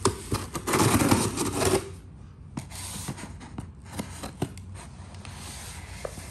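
Packaging being handled and opened while unboxing carbon fiber trim pieces: a burst of rustling and crinkling in the first two seconds, then scattered light clicks and taps.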